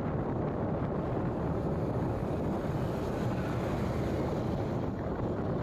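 Steady low rumble of a vehicle driving on a highway, road and engine noise mixed with wind buffeting the microphone.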